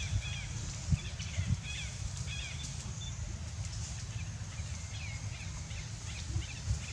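Short, high chirping calls from a small animal, repeated in quick clusters, over a steady low rumble with a few soft thumps.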